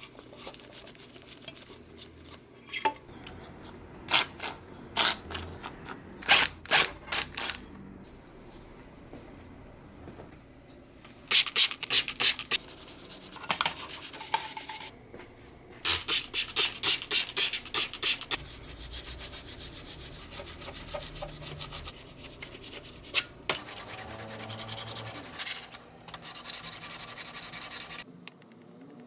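Rubbing strokes of hand abrading work on a mini lathe part: a few single strokes at first, then runs of quick back-and-forth strokes, several a second, broken by short pauses. The runs stop near the end.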